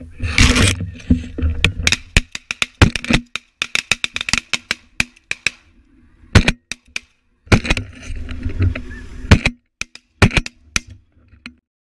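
Snow geese calling in a dense run of short yelps, with a few sharp loud cracks among them. Wind gusts rumble on the microphone near the start and again around eight seconds in.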